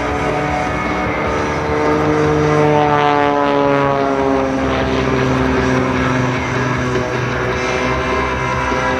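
Propeller-driven aerobatic plane's engine flying past, its pitch falling steadily over a few seconds as it goes by.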